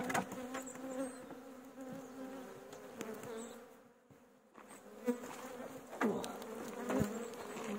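Agitated honeybees buzzing around a just-disturbed nucleus hive, stressed after being worked without smoke. Individual bees zip past close with rising and falling pitch. The buzz drops away briefly around the middle, and there are a couple of sharp knocks in the second half.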